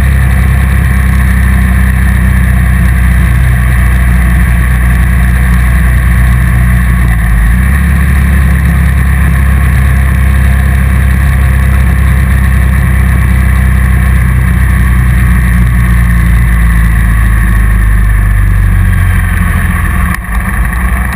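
Motorcycle engine running at a steady cruise, heard from an onboard camera with wind rushing over the microphone. The engine note shifts about seven and a half seconds in, and the sound drops and becomes uneven just before the end.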